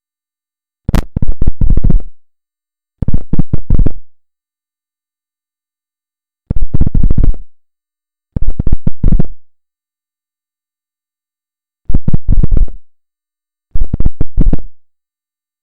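Buzzing, rasping noise from a refrigerator's strange signal, played in six short bursts of about a second each. Each burst is a quick run of crackling pulses, and the bursts come in three pairs separated by silence.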